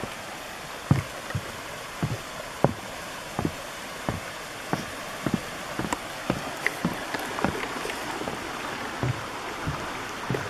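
Footsteps thudding at a walking pace, about one and a half steps a second, as a hiker crosses a footbridge, over the steady rush of a creek.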